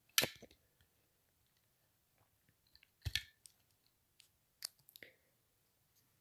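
A handful of sharp, scattered clicks and taps, about half a dozen. The loudest come right at the start and about three seconds in, the second with a dull knock under it.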